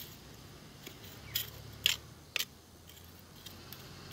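Small curved metal hand tool scraping and stirring through crumbly potting soil in a clay pot, with three short scratchy scrapes in the middle.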